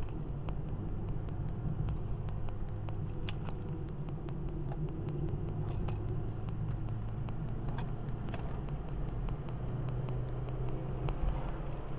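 Steady low rumble of road noise and engine hum inside a moving car's cabin.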